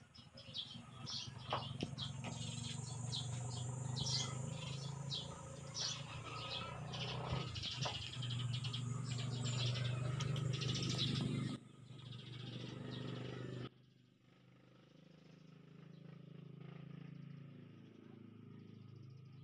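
Birds chirping busily in many quick, short calls over a low steady hum. The chirping stops abruptly about twelve seconds in, leaving only faint background sound.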